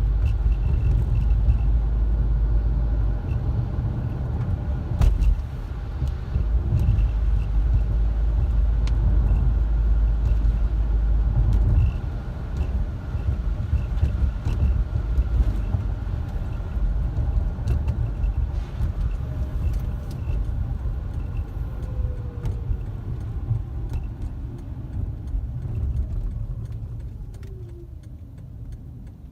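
Car driving on snow-covered roads, heard from inside: a steady low road and engine rumble that tapers off over the last few seconds.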